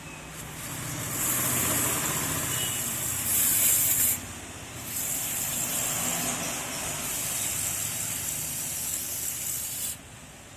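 Pressurised spray hissing in two long blasts onto a diesel EGR valve clogged with carbon soot, to clear the deposits; the first runs from about a second in to about four seconds, the second from about five seconds until it cuts off suddenly near the end.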